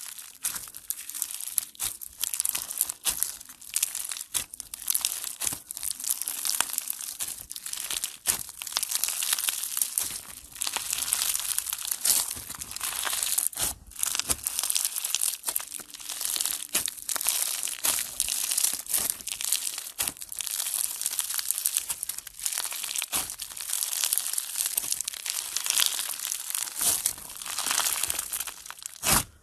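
Pink floam slime, packed with small foam beads, being squeezed and kneaded by hand: a dense, continuous crackling and crunching of the beads as the slime is pressed and pulled.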